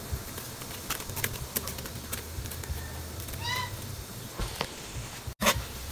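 Coconut milk simmering at the boil, with a steady low bubbling and scattered pops. A short, high animal call sounds once about three and a half seconds in, and a sharp knock comes near the end.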